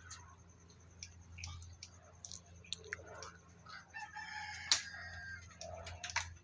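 A rooster crowing, faint, a single drawn-out crow starting about four seconds in, with a few scattered small clicks.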